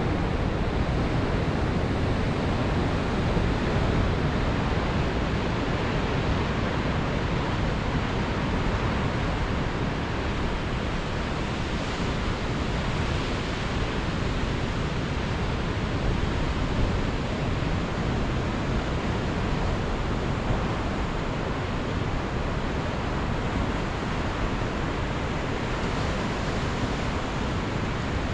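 Heavy ocean surf breaking among rocks and sea stacks: a steady, even roar of whitewater with no single crash standing out.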